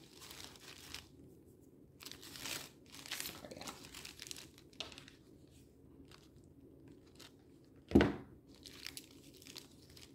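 Coffee-filter paper rustling and crinkling in the hands in short bursts as it is rolled and shaped into a lily, with a single sharp knock about eight seconds in.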